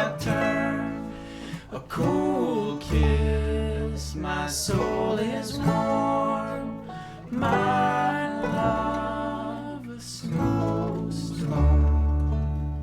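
Acoustic bluegrass band of guitar, fiddle, banjo and upright double bass playing the slow closing bars of a song. Deep bass notes underpin a bending melody line, and the music fades on a final held chord near the end.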